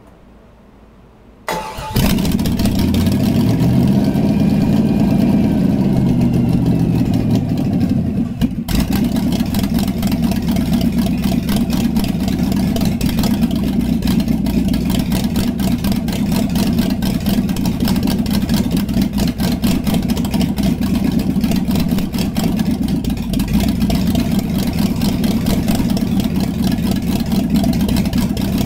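Chevy 350 small-block V8 on an engine stand, on its second start-up, fires about a second and a half in and catches at once. It revs up and down for several seconds, dips briefly, then runs steadily.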